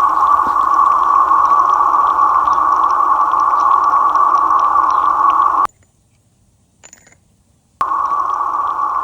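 Water hissing from a leaking service line under concrete, picked up through a leak detector's ground microphone as a loud, steady hiss. The hiss cuts off about six seconds in and returns about two seconds later.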